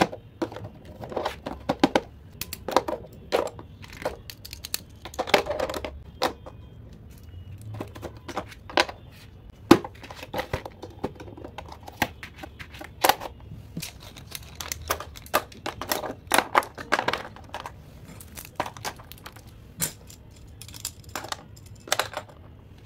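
Pencils and a hard plastic pencil box being handled: irregular clicks and taps as pencils are laid into and shifted in the plastic tray, several a second at times, with a few sharper knocks.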